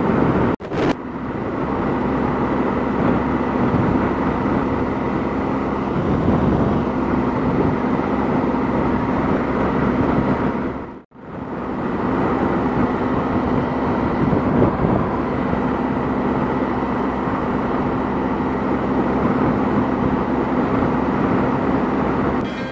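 BMW GS adventure motorcycle cruising at highway speed: a steady engine drone under wind and road noise. The sound drops out briefly about eleven seconds in, then carries on as before.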